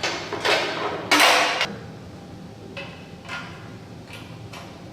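Hand work fastening a water separator to a compressor cart: short mechanical bursts of tool and metal noise, two louder ones in the first second and a half, then several shorter, fainter ones.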